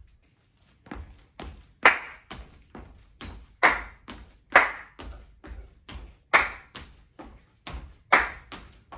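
Sneakers landing on a hardwood floor in quick hops of a ladder footwork drill, about two landings a second in a steady rhythm, some much louder than others. The landings start about a second in.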